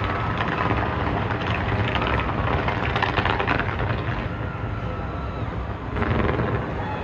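Fireworks going off: a steady rumble of bursts with a stretch of crackling, and a sudden louder burst about six seconds in.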